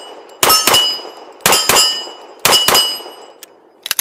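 A .40 caliber Bul Armory Radical 2011 competition pistol fires three rapid double taps, about one pair a second, with a metallic ring trailing each pair.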